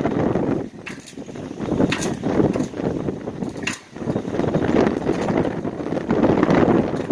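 Strong wind buffeting the microphone in gusts, rising and falling, with a few short clicks.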